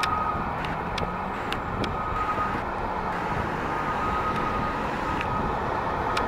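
Fire apparatus diesel engines running low and steady as the trucks roll slowly, mixed with passing road traffic, with a few faint sharp clicks. No siren.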